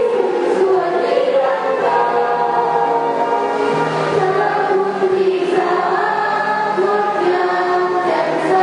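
A student choir singing in several-part harmony, with long held chords that change every second or two.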